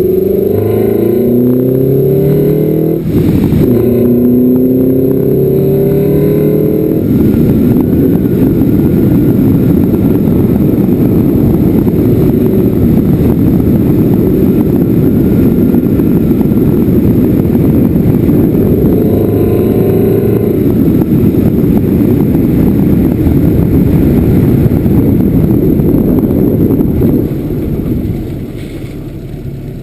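A vehicle engine accelerating with its pitch rising, a shift about three seconds in, then rising again. After that comes a steady heavy low wind rumble on a GoPro microphone behind a sponge cover at speed, easing near the end as the vehicle slows.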